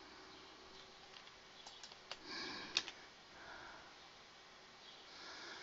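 Faint room tone with a steady low hum, and a few soft clicks of a computer mouse and keyboard about two seconds in, alongside a short soft breath.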